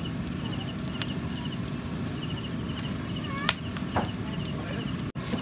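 Open fire under grilling giant freshwater prawns in a metal drum, crackling with a few sharp pops. Insects chirp in a faint, regular pulsing rhythm behind it.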